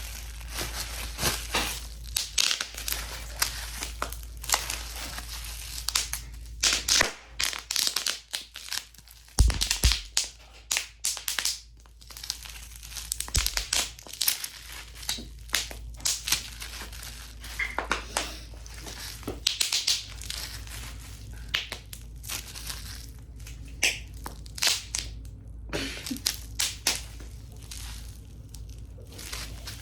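Packaging crinkling, crackling and tearing in irregular bursts as a clay kit is unwrapped by hand.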